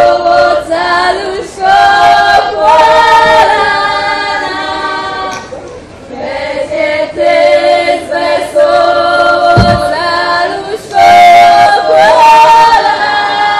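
Women's and girls' voices of a Polish Orawa folk ensemble singing a folk song together, unaccompanied, in phrases of long held notes with a brief pause about halfway through.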